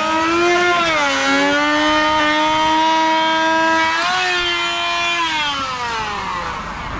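A motor whining at a steady pitch. The pitch dips about a second in and steps up again near four seconds, then winds down over the last two seconds.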